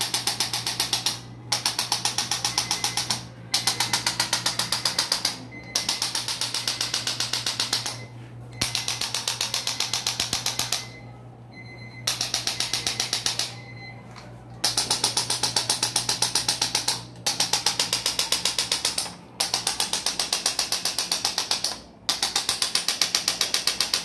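Corded electric chiropractic adjusting instrument firing rapid trains of taps against the knee, in bursts of about two seconds with short pauses between. One burst about halfway through is quieter.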